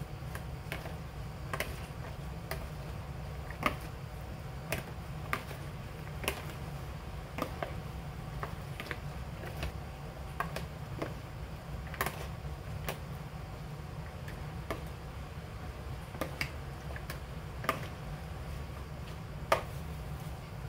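Metal spoon and fork tossing chopped vegetables in a plastic mixing bowl, knocking against the bowl in irregular clicks about once a second, with a louder knock near the end. A steady low hum runs underneath.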